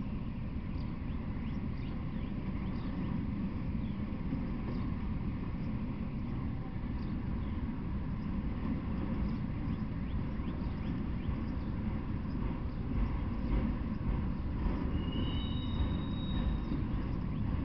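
Freight train of autorack cars rolling past: a steady rumble of steel wheels on the rails with faint repeated clicking, and brief high-pitched squeals near the end.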